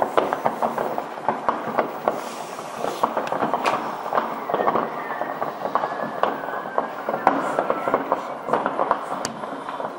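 New Year's Eve fireworks: firecrackers and rockets going off in a dense, unbroken run of overlapping bangs and cracks.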